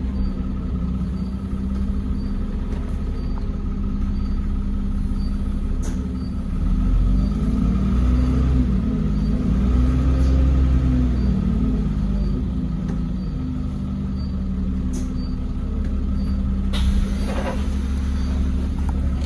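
Trident double-decker bus heard from inside the passenger saloon while driving: the engine note rises and falls in the middle as it pulls through the gears, over a steady whine and a faint regular ticking about twice a second. A short hiss near the end.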